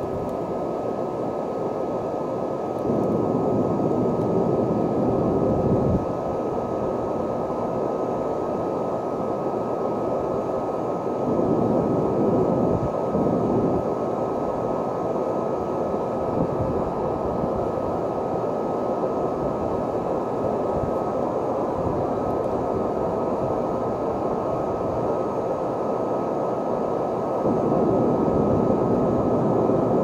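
High-power leaf blower running steadily, blowing air through a dryer vent duct, with a steady high whine over the rush of air. It swells louder a few times, about three seconds in, around eleven to thirteen seconds, and near the end.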